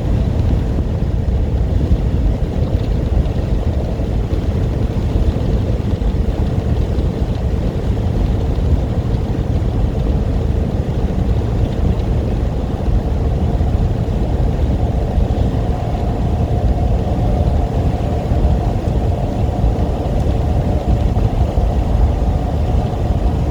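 Steady low rumble of a semi-truck's engine and road noise heard inside the cab at highway speed. A steady hum runs through it, and a second, slightly higher hum joins a little past halfway through.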